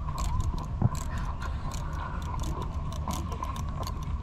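A camel chewing a banana close by: a quick, irregular run of crisp clicks with one sharper knock about a second in, over a steady low rumble.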